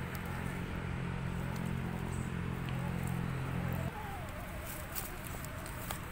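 Scale RC crawler's brushed electric motor and geared drivetrain running at crawling speed, a steady low hum. The hum cuts off about four seconds in and gives way to a fainter, wavering whine with light ticks.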